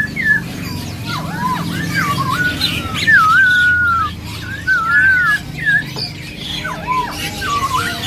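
Several caged songbirds singing, one clear whistled phrase after another, each sliding up and down, over a low steady background hum.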